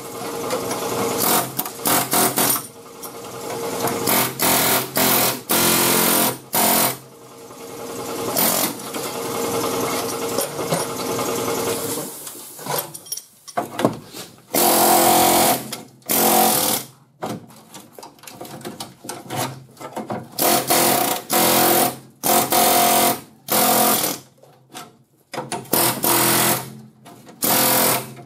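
Pneumatic air hammer with a flat chisel bit chattering against sheet metal, cutting through the rusty steel rocker panel and its spot welds. It runs in repeated bursts, nearly continuous at first, then in shorter bursts with pauses between them in the second half.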